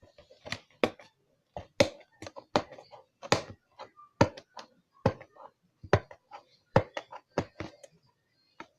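Hands handling and working at the packaging of a boxed slime kit to get it open: an irregular string of sharp clicks and knocks.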